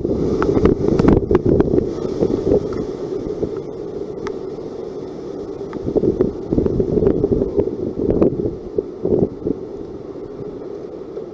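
Strong hurricane wind gusting and buffeting the microphone in uneven surges, mostly a low rumble.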